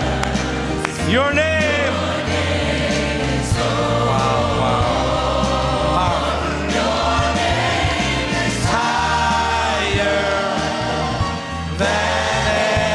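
Live gospel worship music: a choir and singers over a band, with a steady bass line.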